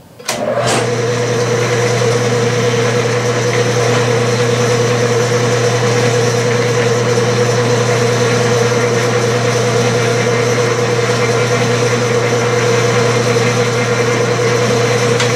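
Clausing metal lathe switched on with a click about half a second in, then running steadily in back gear at slow speed with a low hum and a steady mid-pitched tone, while the threading tool takes a cutting pass.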